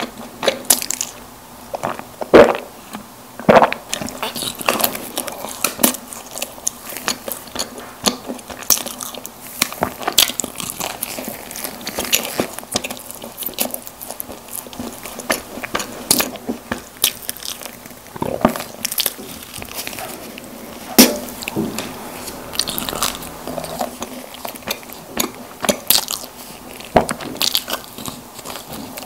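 Close-miked eating of soft sponge snack cakes: biting and chewing with many sharp, wet mouth clicks at an irregular pace.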